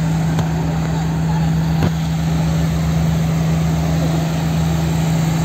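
Diesel locomotive engine idling: a steady low hum over a rapid, even throb.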